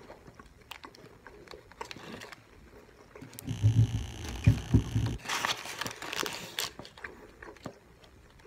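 A person eating close to the microphone: chewing with scattered small mouth clicks and a few low thumps, and a short burst of rustling a little past the middle.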